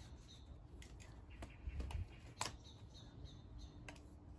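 Lightweight aluminium camera tripod being adjusted by hand: several sharp clicks and rattles from its legs and locks as they are set, the loudest about halfway through.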